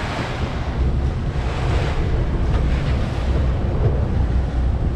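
Wind on the microphone over the rush of a sportfishing boat's churning wake, with a steady low rumble underneath.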